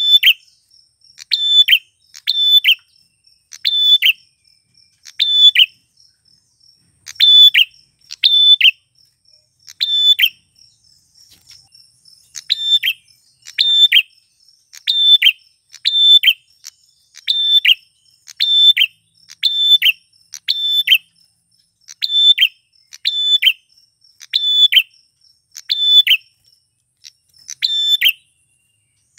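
Male prenjak (prinia) calling loudly and insistently: sharp chirping call phrases repeated about once a second, often in quick pairs, with a short lull about six seconds in. A faint insect trill runs underneath.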